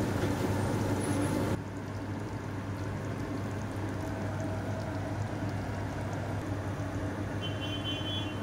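A pot of pork stew in sauce simmering on a gas stove, a steady bubbling hiss over a constant low hum. About one and a half seconds in, the sound drops abruptly to a quieter take of the same simmering.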